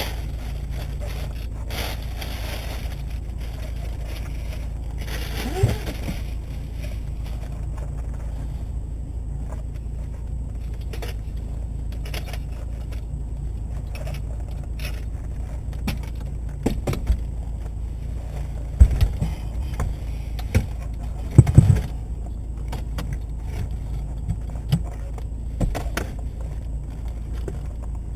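Rustling of a plastic cover for the first few seconds, then scattered clicks and knocks as the metal frame of a Veloped rollator is handled and folded, the loudest knocks about two-thirds of the way through. A steady low hum runs underneath.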